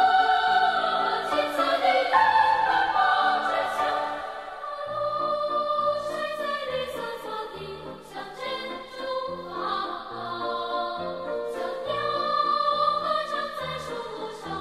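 Background music: choral singing with orchestral accompaniment, in a slow, sustained style.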